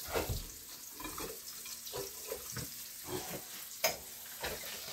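Ground chicken sizzling as it fries in a pan, with a few light knocks and clicks, one sharper near four seconds in.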